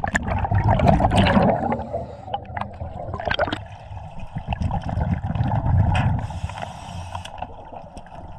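Underwater sound of a scuba diver's breathing: exhaled bubbles from the regulator gurgle past the microphone in bursts, loudest in the first two seconds and again about three and a half seconds in. A steady low rumble of river current runs beneath.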